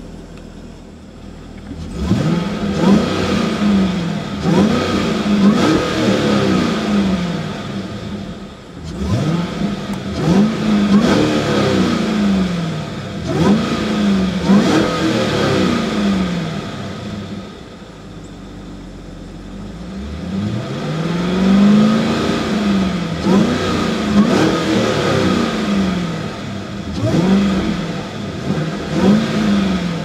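2015 Cadillac CTS-V's supercharged 6.2-litre LSA V8 revved in neutral, heard from inside the cabin: it idles for about two seconds, then is blipped up and let fall back again and again in three runs, with short pauses at idle between them.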